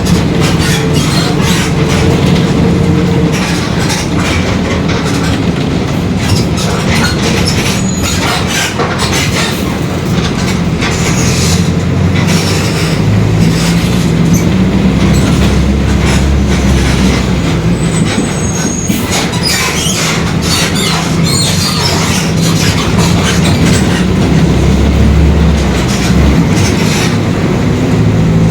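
Mercedes-Benz OF-1721 city bus underway: its front-mounted diesel engine running, with a low hum that shifts in pitch several times, and constant rattling and knocking from the body, with a few short high squeaks. The differential is growling.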